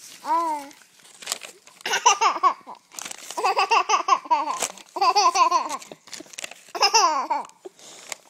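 Baby laughing hard in four long bursts of rapid, breathy giggles, each broken into quick pulses.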